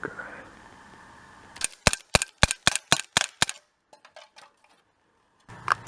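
Umarex Beretta PX4 Storm CO2 air pistol fired in rapid succession: about eight sharp shots, roughly four a second, starting a little under two seconds in.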